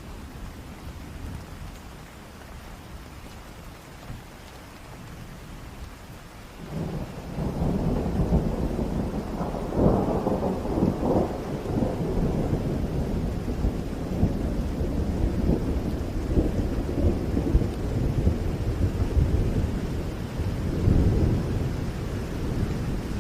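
Steady heavy rain. About a third of the way in, a long rolling thunderclap breaks in, loudest a few seconds later, and rumbles on over the rain.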